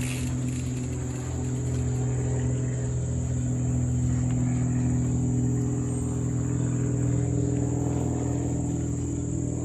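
Steady low hum with a steady high-pitched insect chorus over it.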